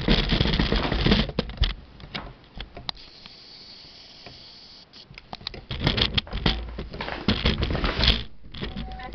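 Handling noise from a handheld camera being moved: close rustling and irregular taps and knocks. It fades to a faint hiss for a couple of seconds in the middle, then picks up again.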